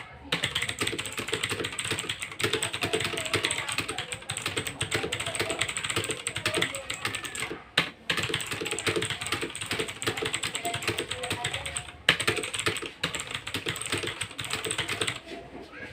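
Fast typing on a Zyper Vodnik mechanical keyboard: a rapid, continuous run of key clacks at about 110 words per minute. There is a brief pause a little under halfway, and the typing stops shortly before the end.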